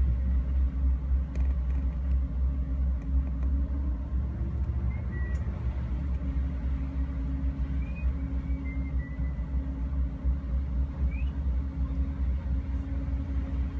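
Car ferry's engines running with a steady low rumble and hum, heard from inside a parked car on the vehicle deck; the hum bends briefly in pitch a few seconds in.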